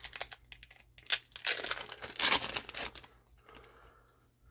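Trading-card booster pack wrapper being torn open and crinkled: a run of crackling tears and rustles, the loudest about a second in and again past two seconds, dying down after about three seconds.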